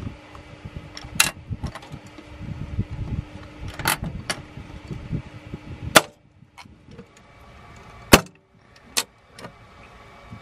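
Hand pop-rivet gun being squeezed to fasten a number plate, giving a series of sharp metallic snaps and clicks, about six or seven in all, the loudest about six and eight seconds in.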